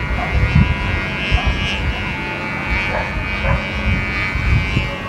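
A sumba kite's noisemaker buzzing steadily in the wind overhead, with gusts of wind rumbling on the microphone.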